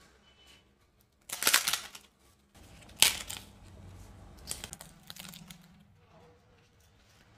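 A crisp methi khakhara (thin roasted wheat flatbread) snapping and crackling as it is broken by hand: a crackly break about a second and a half in, the loudest sharp snap about three seconds in, then smaller crackles as the pieces are broken further. The crackle is the sound of its dry, crispy, crunchy texture.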